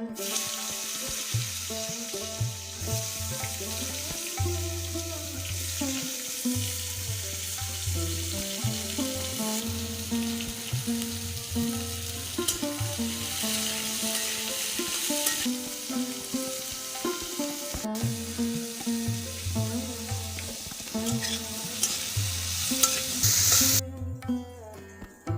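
Food frying and sizzling in oil in a pan, stirred now and then. The sizzle is steady and stops suddenly about a second and a half before the end.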